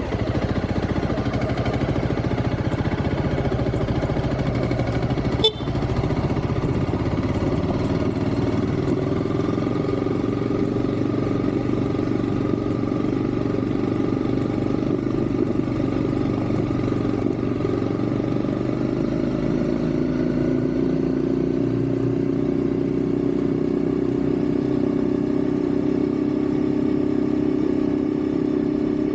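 Motorcycle engine running steadily while under way, its note shifting about two-thirds of the way through. One sharp knock comes about five and a half seconds in.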